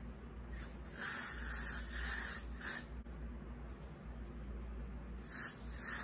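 Short hissing bursts: a run of about five starting about half a second in, and another run starting near the end.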